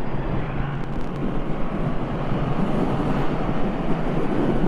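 Triumph Thruxton 1200 R's 1200 cc parallel-twin engine running steadily while the bike is ridden on the road, with a steady rush of wind and road noise.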